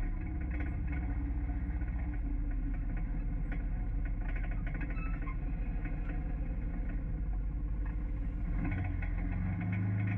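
UTV engine running steadily with an even low pulse and light clicks and rattles over it; near the end its note steps up.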